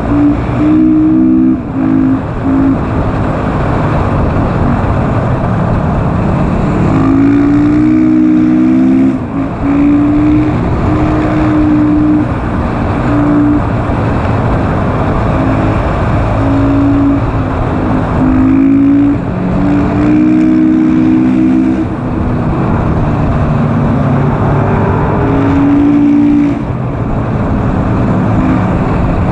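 On-board sound of a KTM SMC R supermoto's single-cylinder engine under hard acceleration. The engine note climbs and breaks off again and again as the bike is ridden at speed, over a steady rush of wind noise.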